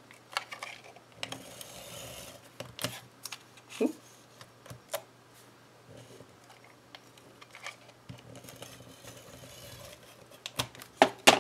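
Adhesive tape runner rolled along the back of a paper strip on a craft mat: soft rasping runs and small clicks, with paper rustling as the strip is handled. Several sharper clicks come near the end.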